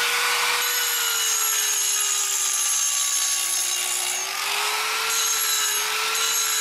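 Electric angle grinder running against a concrete stair edge, its motor whine steady over a gritty hiss of abrasion. The pitch dips slightly a few seconds in and then picks back up.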